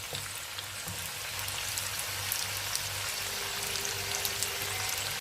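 Soaked chana dal sizzling as it fries in hot oil in a pan: a steady hiss with scattered small crackles, as it browns.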